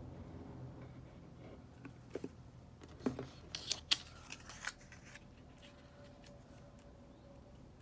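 Quiet handling of paper and a squeeze bottle of white glue on a tabletop: a few short rustles and small clicks in the middle as a construction-paper cutout is picked up and laid down.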